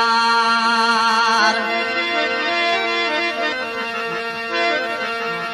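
Indian folk song over a steady drone: a male singer holds a long wavering note, then the accompaniment carries the melody on alone from about a second and a half in.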